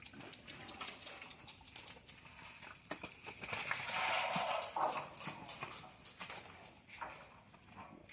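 Cattle hooves knocking and clopping on hard ground, irregularly, with a louder stretch of noise lasting about a second and a half around the middle.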